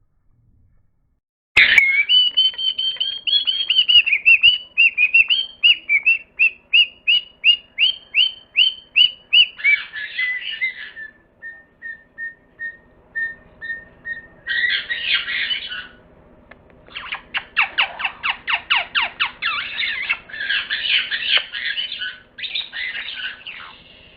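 Bird calls starting suddenly, a couple of seconds in: a long run of repeated whistled notes, about two a second, then a string of short quiet notes, then several bursts of harsh, scratchy chattering squawks.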